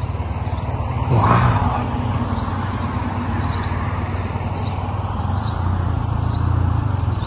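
Steady low outdoor rumble, swelling briefly about a second in, with a few faint high chirps.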